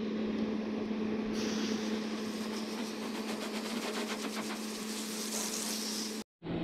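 Water from a hose spraying onto a camper's roof to rinse it, the hiss starting about a second and a half in, over a steady low hum.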